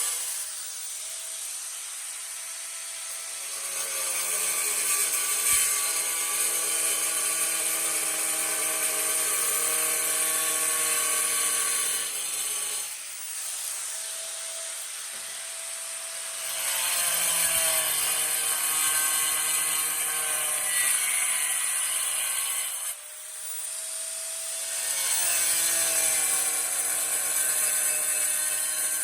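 Angle grinder cutting through floor tile in three passes, a high motor whine with a gritty cutting noise. The whine sags in pitch while the blade is in the tile and climbs back up in the brief pauses between passes, about 12 and 23 seconds in.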